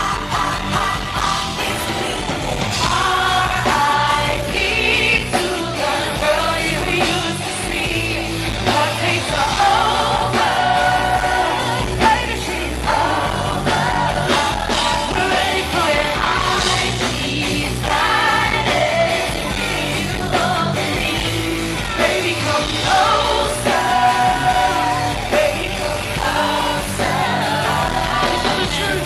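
Live pop concert music: a band with a heavy bass beat, and singing over it, played loud through the club's PA.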